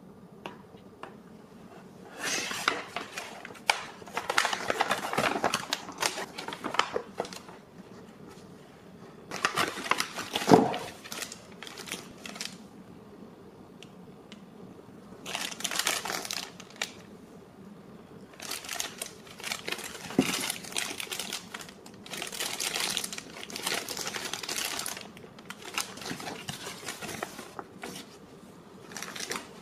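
Clear plastic bags around small toy figurines crinkling as they are handled, in several stretches of a few seconds each with short quiet pauses between.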